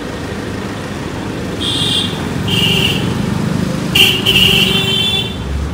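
Vehicle horns honking in short high-pitched blasts, with a longer blast a few seconds in, over the steady rumble of a running engine and street traffic. A single knock about four seconds in.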